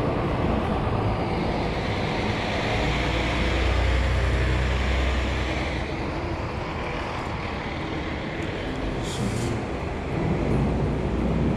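City street traffic: a vehicle passes with a deep low rumble from about three to six seconds in, and a short hiss sounds near nine seconds.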